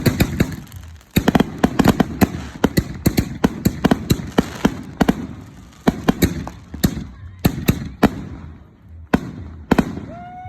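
Firework mortar shells bursting overhead in a rapid, irregular barrage of sharp bangs with echoing tails, thinning out to a few last bangs near the end.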